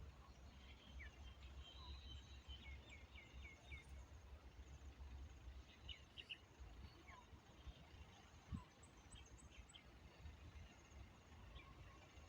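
Near silence with faint, scattered bird chirps, including a quick run of four falling chirps a few seconds in, over a low steady rumble.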